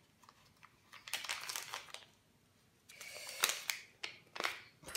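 Paper sachet of baking powder crinkling as it is handled and opened, in two short spells, with a few light clicks near the end.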